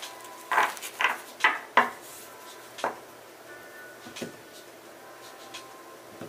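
A tarot deck being handled and tapped on a cloth-covered table: four sharp clicks in quick succession, about half a second apart, then one more near three seconds in and fainter handling sounds after.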